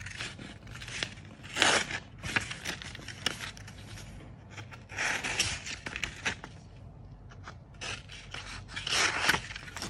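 The small folding knife blade of a SOL Origin survival kit slicing through the edge of a sheet of paper: a paper-cutting sharpness test. It makes several short scraping cuts, the three strongest about a second and a half in, about halfway through and near the end.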